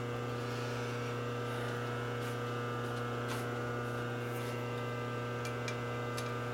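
Steady electrical mains hum from the shop equipment, with a few faint light clicks as a bore gauge is handled against the engine case.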